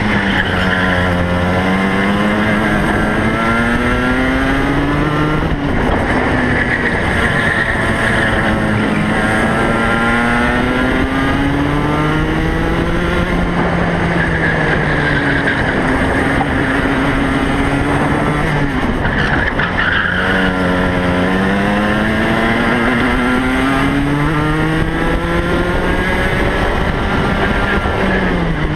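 Two-stroke racing kart engine heard from on board, its pitch climbing in long rises along the straights and falling steeply under braking for the corners, about four times, with a steady rush of wind and road noise.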